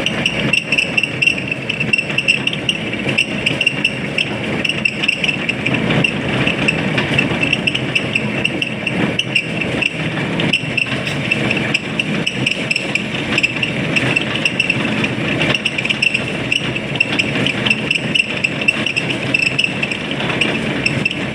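Lathe running steadily while turning a metal workpiece, a continuous machine sound with a high whine over a low rumble.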